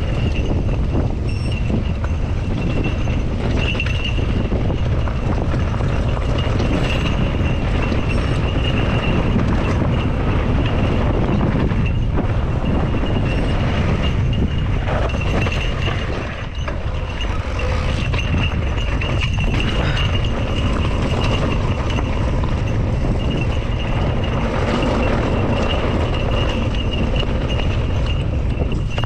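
Mountain bike rolling over a rough gravel dirt track: wind rushing on the camera microphone, tyres crunching on loose stones, and frame and parts rattling over the bumps. A thin high whine comes and goes throughout.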